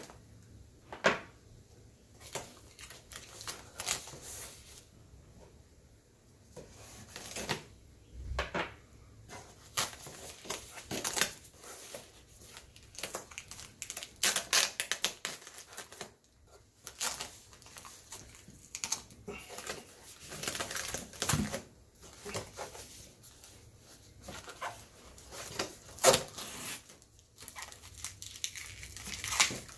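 Hands crinkling and rustling white packing wrap while handling a cardboard box, in irregular bursts of crackles and small taps.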